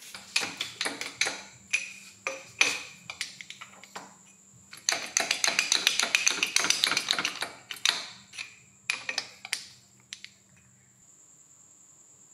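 Rapid, irregular small metallic clicks and taps from hands-on work on a drill armature, densest in a flurry midway. A faint steady machine hum with a high whine runs underneath and cuts off near the end.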